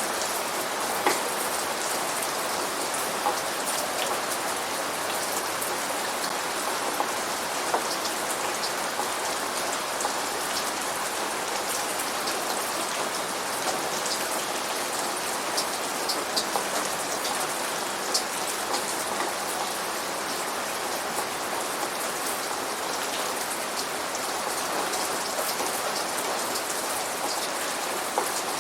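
Steady rain with close individual drops ticking sharply over an even hiss, and no thunder.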